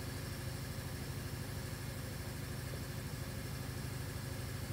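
A steady low background hum that does not change, with no other sound over it.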